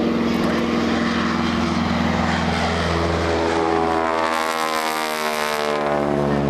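Radial-engine propeller plane of the T-6 Texan type flying a low pass overhead: a steady engine drone whose pitch falls from about halfway through as it goes by.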